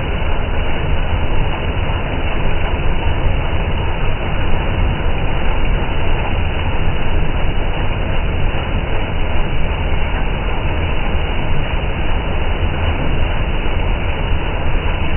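Combine harvester running steadily while harvesting wheat: a loud, continuous low machine rumble with no breaks.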